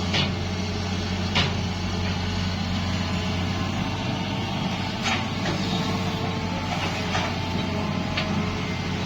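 Heavy diesel engine of construction machinery running steadily, with about five short sharp knocks scattered over it.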